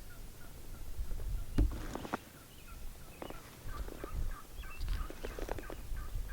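Wild turkeys gobbling from the roost in several short bursts, over a low rumble.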